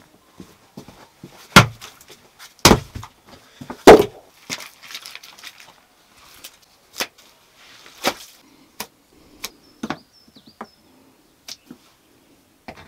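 Flat stones being handled and set down on a clay-and-earth floor: three heavy knocks in the first four seconds, then lighter, scattered clacks of stone on stone.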